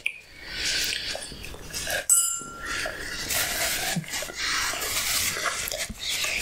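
A single ringing clink of tableware about two seconds in, amid soft handling noise.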